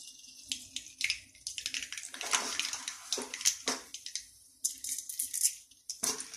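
Mustard seeds and urad dal sizzling in hot oil in a kadai, with scattered sharp pops and crackles: the tempering (thalippu), the oil hot enough for the seeds to crackle.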